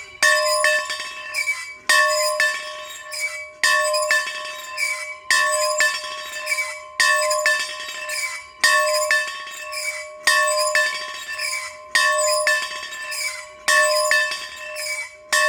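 A bell being rung steadily. A loud clapper strike comes about every second and a half to two seconds, with lighter strikes in between, and the bell's tone rings on between them.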